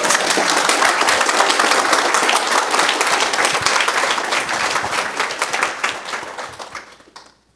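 Audience applause: dense clapping from a room full of people that tapers off about six seconds in and stops near the end.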